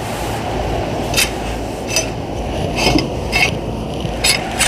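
Metal tools scraping and clinking on CVT transmission parts during cleanup, with about five short metallic clinks over a steady low scraping and rubbing noise.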